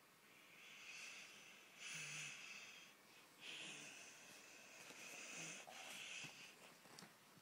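Faint breathing close to the microphone: a run of soft, hissy breaths, about one every second or so.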